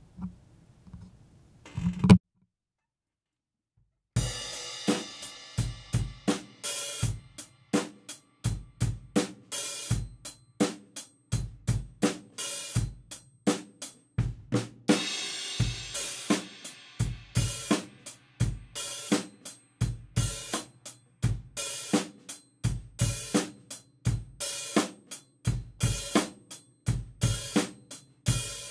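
Acoustic drum kit playing a steady beat of about two strokes a second on kick and snare under the hi-hat, with hi-hat barks: the hi-hat lifted open by the left foot for a short hissing "psst" and closed again. The playing starts about four seconds in, after a single thump and two seconds of dead silence.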